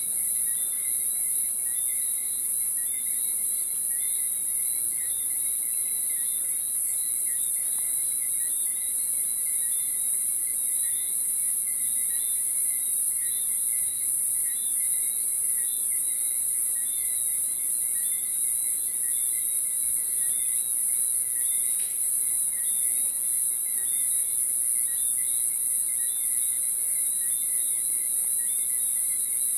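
Evening chorus of crickets and other insects: a dense, steady high-pitched buzz, with short chirps repeating evenly throughout.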